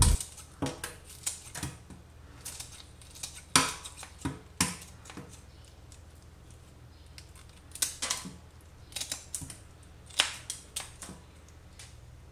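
Kitchen scissors snipping raw shrimp, cutting off the legs and the shell along the back: a series of irregular sharp snips with quiet gaps between, the loudest about three and a half, four and a half, eight and ten seconds in.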